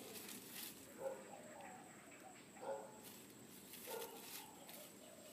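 Faint rustling and crackling of dry straw as a small dog noses through it, with three short animal calls about a second, two and a half seconds and four seconds in.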